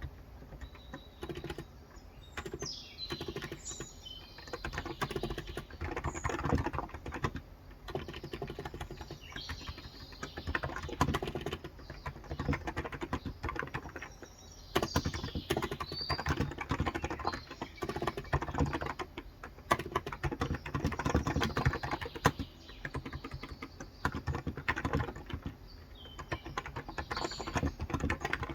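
Continuous typing on a Cox Endeavor electrostatic-capacitive keyboard with light 35 g keys: a dense, irregular run of soft keystrokes that eases off briefly a few times. Birds chirp faintly in the background now and then.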